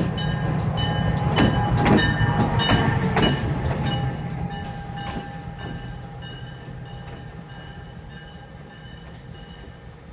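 EMD SW1000 diesel switcher running light, its two-stroke V8 diesel engine rumbling and fading steadily as it draws away. Sharp irregular clicks of wheels over the rails are mixed in, loudest about two seconds in.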